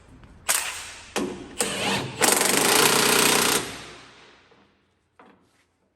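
A power tool, fitting removing or fitting fasteners on the combine's tailboard, run in three short bursts and then in one longer run of about a second and a half that winds down after release.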